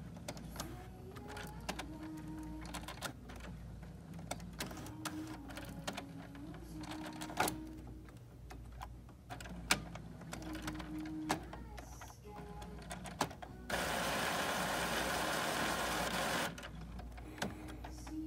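Epson inkjet printer running its power-on initialisation: short motor whines that rise and fall, with scattered clicks from the carriage and feed mechanism. About two-thirds through, a steadier, louder noisy run lasts about three seconds. The printer is re-setting its mechanism after the print-head carriage lock was freed to clear error 0xEA.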